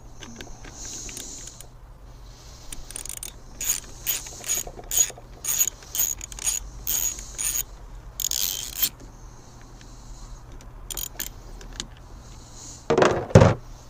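Hand ratchet clicking in short strokes, about two clicks a second, as a round-head bolt is run in; a brief scrape follows, then two loud knocks near the end.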